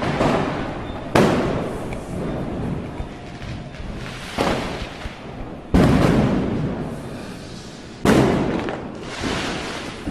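Firecrackers going off: about five loud, sharp bangs at irregular intervals, each followed by an echoing rumble that fades over a second or two.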